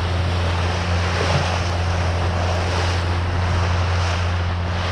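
Boat engine running with a steady low drone, under wind and water noise.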